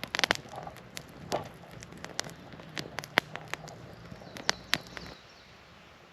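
Small wood fire crackling, with irregular sharp snaps and pops several times a second that stop abruptly about five seconds in.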